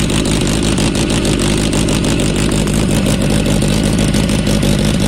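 Benelli BN 600 motorcycle's four-cylinder engine running steadily.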